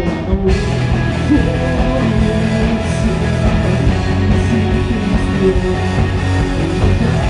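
Loud live rock band playing an instrumental passage with guitar, bass and drums. The high end cuts out for about half a second right at the start.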